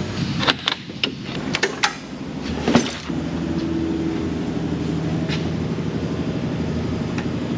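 A few sharp clicks, then about three seconds in an electric motor starts and runs with a steady hum: the shop's overhead door opener raising the bay door.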